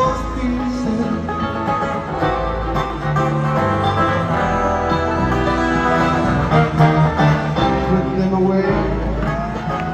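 Live bluegrass band playing an instrumental through an arena PA, heard from the crowd: plucked strings and banjo over an upright bass line. Near the end a note glides up and then back down.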